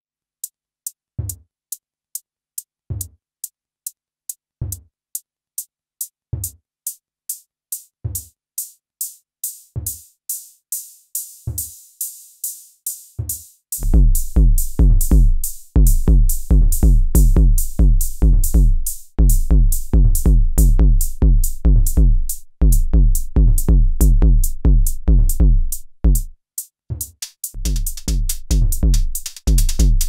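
MODE MACHINES ADX-1 analog drum machine playing a pattern: rapid high metallic ticks, with a low drum hit falling in pitch about every 1.7 seconds. About 14 seconds in, a loud, busy run of deep bass notes, each falling in pitch, comes in and stops briefly several times.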